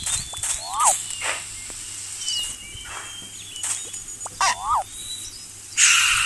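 A string of short animal-like calls and sound effects: repeated zigzag chirps, a few clicks and gliding whistles, and a loud noisy burst near the end.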